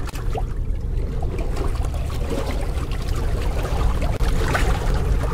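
Steady rushing, watery noise with a heavy low rumble and a scatter of small ticks.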